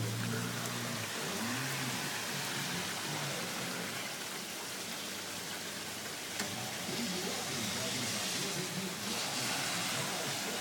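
Steady rain falling on wet concrete pavement and grass, an even hiss that brightens a little in the second half.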